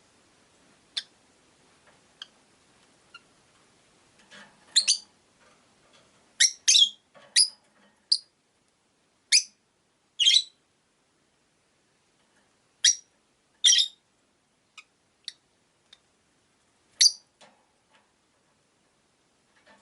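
Rosy-faced lovebirds giving short, sharp, high-pitched chirps at irregular intervals, about fifteen calls with some in quick pairs.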